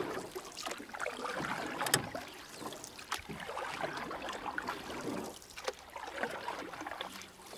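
Water splashing and sloshing in an uneven pattern, with a sharp knock about two seconds in.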